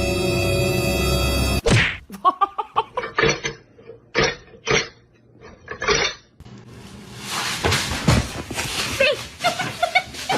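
Background music that cuts off suddenly about one and a half seconds in. It is followed by a run of short, separate knocks and thuds, and then a longer stretch of clattering, crashing noise with repeated impacts.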